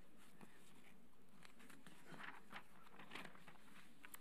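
Quiet meeting-room tone with faint scattered rustles and light clicks.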